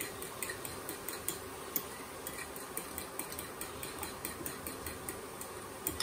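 A fork beating eggs and grated Parmesan in a ceramic bowl, clicking against the bowl about three times a second.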